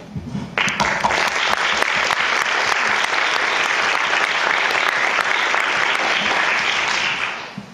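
Audience applauding. It starts about half a second in, holds steady, and dies away near the end.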